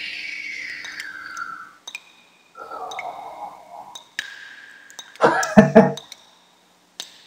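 A man breathing out in heavy, sighing breaths, then a short, loud wordless vocal outburst about five seconds in. Faint clicks are scattered throughout.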